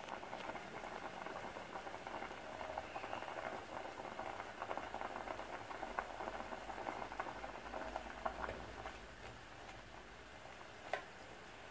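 Pot of noodle soup with sausages, shrimp and egg boiling hard on a gas burner: dense bubbling and crackling that eases off about three-quarters of the way through. A fork clinks once against the pot near the end.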